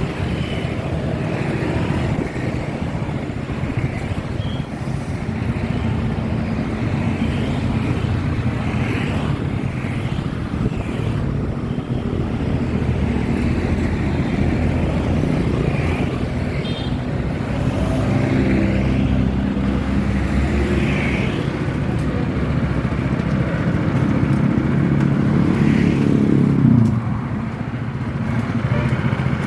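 Honda GX200 single-cylinder four-stroke engine on a Quick Capung Rawa two-wheel hand tractor, running steadily with its throttle set about halfway. It grows louder in the second half, then drops back sharply a few seconds before the end.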